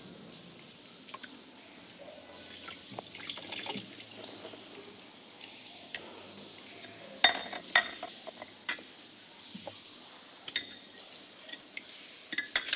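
Hollow wax ex-voto hands being handled, knocking and clicking against each other and the surface as they are set down. Light rustling at first, then several sharp, hollow taps in the second half.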